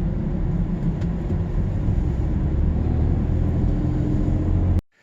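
Car cabin noise while driving: a steady low rumble of engine and road that cuts off abruptly near the end.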